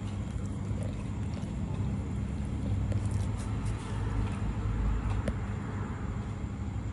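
A steady low mechanical hum, swelling slightly midway, with a few faint sharp clicks over it.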